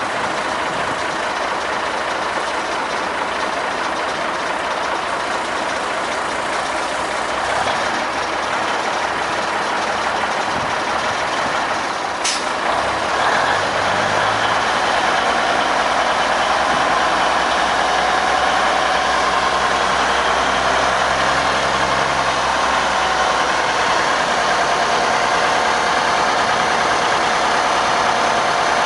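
1951 Autocar DC103 semi tractor's diesel engine running, with a single sharp snap about twelve seconds in. The engine then speeds up and runs louder and steadier as the tractor moves on the lowboy trailer, puffing exhaust smoke.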